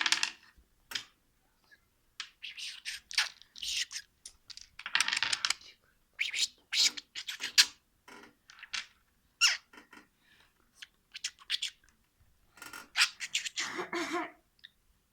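Pet budgerigar chattering: short squeaky chirps, clicks and scratchy warbles in scattered bursts, with a lower, harsher burst about thirteen seconds in.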